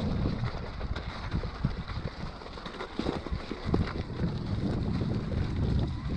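Electric mountain bike riding over a bumpy trail of snow and rock, its tyres rolling and the bike knocking and rattling over the bumps, with wind buffeting the microphone as a heavy rumble.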